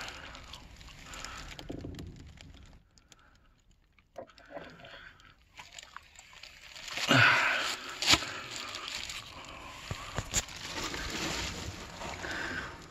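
Irregular scraping, crunching and rustling as a person moves about in a crawlspace, with a louder stretch about seven seconds in and a few sharp knocks after it.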